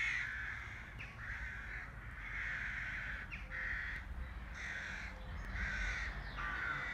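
Crow cawing over and over, in a steady series of short calls about one a second.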